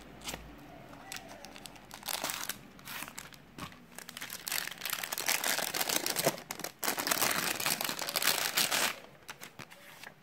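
Thin clear plastic packaging bag crinkling as it is handled and a phone case is slid out of it. The crinkling comes in short bursts at first, then runs almost without a break for about four seconds before dying away to a few light clicks.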